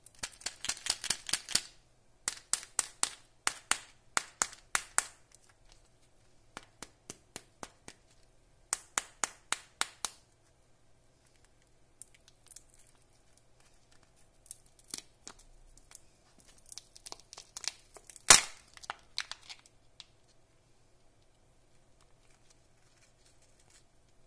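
Glitter-coated plastic Kinder Joy egg being handled and worked open: runs of quick, sharp clicks and crackles, then a single loud crack about eighteen seconds in.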